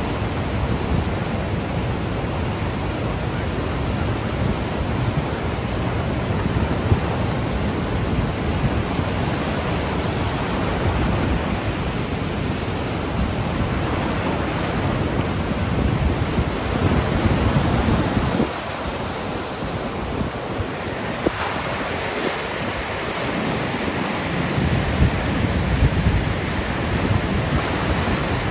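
Niagara River's class 6 whitewater rapids: a loud, steady rush of churning, breaking water.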